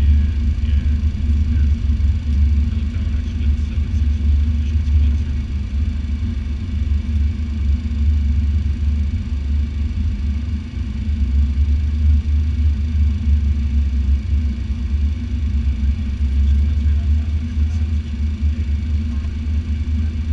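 Cockpit noise of a Cessna Citation X business jet on approach: a steady, loud, low rumble of airflow and its twin turbofan engines, with a steady hum above the rumble.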